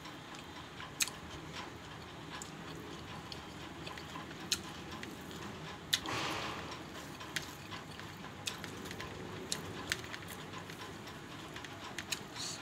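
Close eating sounds from a person eating rice and curry by hand: chewing and mouth smacks, with scattered sharp clicks, one every second or two, from the mouth and from fingers working the food on the plate.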